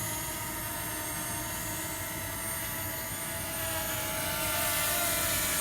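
DJI Mini 2 SE drone's propellers whining steadily in flight, growing a little louder about four seconds in.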